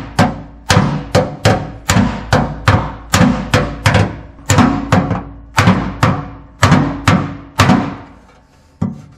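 Ball-peen hammer beating on the truck's inner fender well, about three sharp ringing blows a second, flattening a spot on the sloped wheelhouse so the coolant reservoir bracket will sit flat. The blows stop near the end, followed by one faint knock.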